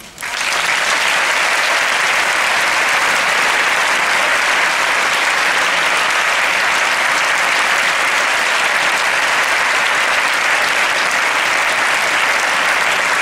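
Audience applauding, breaking out all at once right at the start and holding steady and loud.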